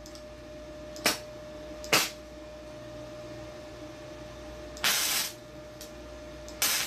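Flux-core welding arc striking on thin exhaust pipe to tack it: two short pops about one and two seconds in, then two half-second bursts of arc crackle near the end, over a steady faint hum.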